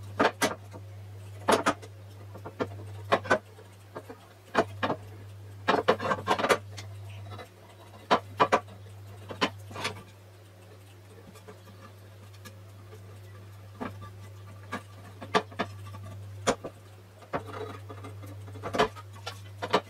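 Small screwdriver picking and scraping old sealant out of the grooves of an aluminium camshaft oil seal retainer, metal on metal in irregular sharp scratches and clicks. A steady low hum runs underneath.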